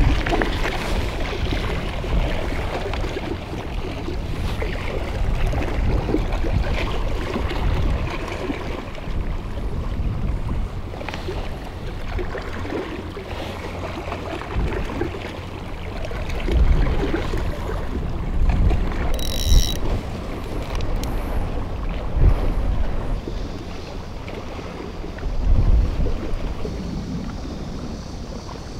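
Wind buffeting the microphone in uneven gusts over the wash of the sea against a concrete breakwater. A brief high-pitched sound comes a little past the middle.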